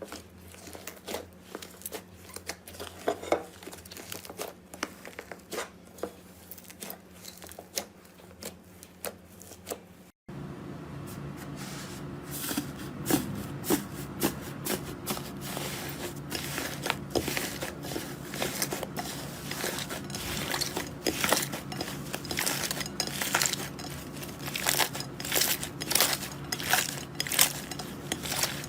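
Slime being squeezed and worked by hand, a dense run of sharp crackling clicks and pops. About ten seconds in, a cut to another clip brings the same kind of clicking over a steady low hum.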